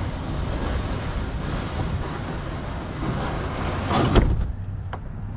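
Wind buffeting the microphone steadily, with a brief louder noise about four seconds in as the kayak is handled.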